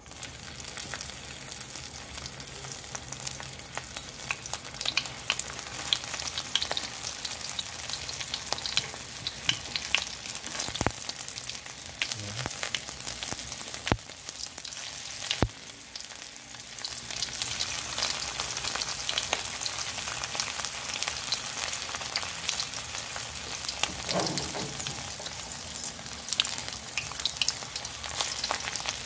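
Dried fish (daing) frying in hot oil in a wok: a steady sizzle with many sharp crackles and pops. It starts as the first fish goes into the oil, dips briefly about halfway through, then comes back louder.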